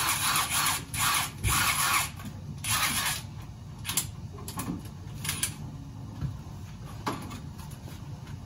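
Handheld cordless power tool running in several short bursts, followed by a few sharp knocks.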